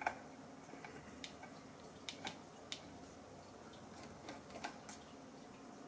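Faint, irregular light clicks and taps of a laptop hard-drive caddy and its small screws being handled as the caddy is taken off the hard disk.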